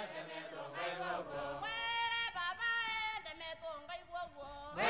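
Voices singing a chant-like melody as a music track, with long held notes that glide between pitches.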